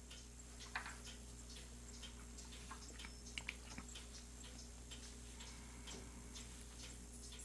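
Faint, irregular light clicks and taps of small pen parts being handled on a workbench, over a steady low hum.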